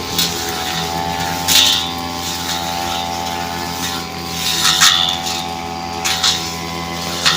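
Brush cutter engine running steadily at high throttle while its blade slashes through thick brush, with several short, loud crackling bursts as it cuts into stems.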